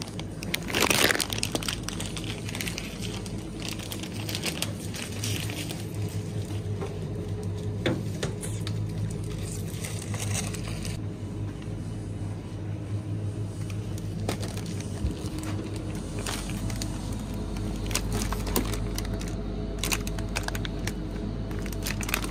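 A plastic snack bag crinkling as it is handled, loudest about a second in, with scattered rustles and clicks after that. A steady low hum from open refrigerated display cases runs underneath.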